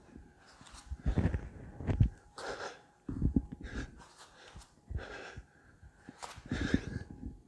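A man breathing hard from exertion during push-ups, with sharp exhales and gasps about once a second.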